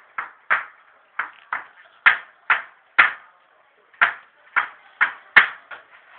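A series of short, sharp knocks, about two a second and unevenly spaced, each ringing briefly before it dies away.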